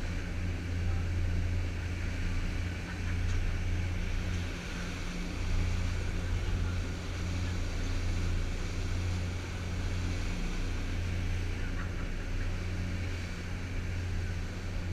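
Engines of a passenger boat running steadily underway: a constant deep drone, with an even rush of water from the wake over it.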